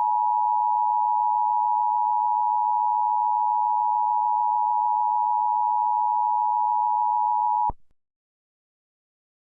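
Emergency Alert System attention signal: two steady tones sounded together as one continuous electronic alarm, cutting off suddenly about two seconds before the end.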